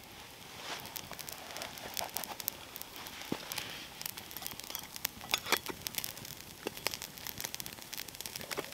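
Thin steak cooking directly on hot campfire coals: a steady sizzle broken by many small, irregular crackles and pops from the fat and the embers.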